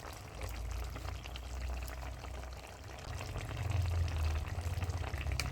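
Vegetable curry simmering in a kadai, bubbling and crackling softly, over a low rumble that swells about four seconds in.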